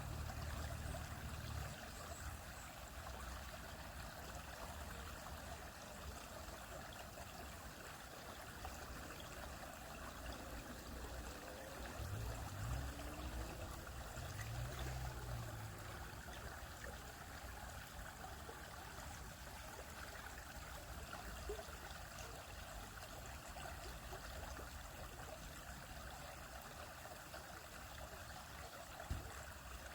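Small stream flowing steadily over rocks, a continuous babbling rush of water, with a couple of brief low rumbles partway through.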